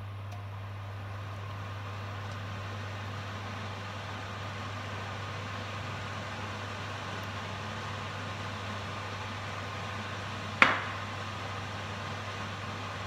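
Induction hob humming steadily with its cooling fan running as it heats a frying pan. A single sharp knock about ten and a half seconds in.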